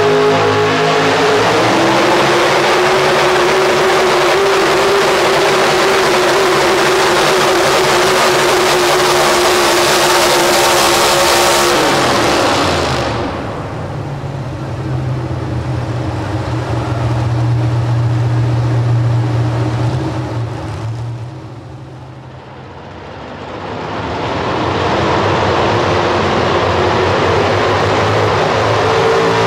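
Pro stock four-wheel-drive pulling truck engine run hard at high revs under load on the sled. About twelve seconds in the throttle comes off and it drops to a lower, steady running note. Near the end another pulling truck's engine revs up loud again.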